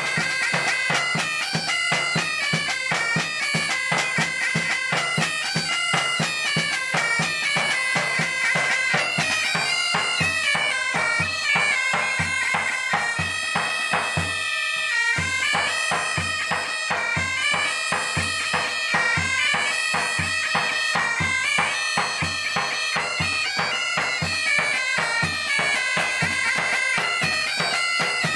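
A military pipe band playing a tune: bagpipes carry the melody over a steady beat of side drum and bass drum. About halfway through, the drums stop for a moment while the pipes play on.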